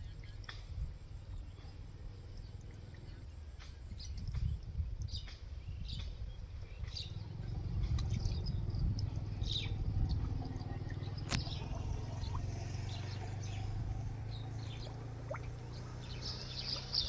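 Small birds chirping here and there over a low, steady rumble that grows louder about four seconds in, with one sharp click about eleven seconds in.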